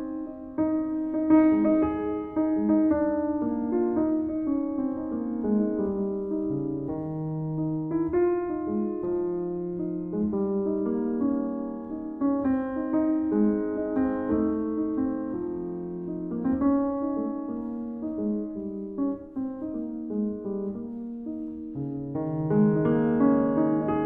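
Solo grand piano playing, a melody over chords, with notes struck and left to ring.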